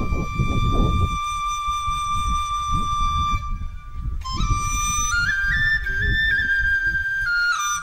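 Background music: a flute holds one long note, then plays a stepped melody of higher notes from about four seconds in. A low rumbling noise runs underneath and is loudest in the first second.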